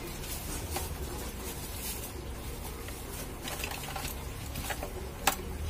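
Light clicks and handling noises from the metal parts of a stand fan's motor being fitted together, its shaft, spacers and bushings, with one sharper click near the end.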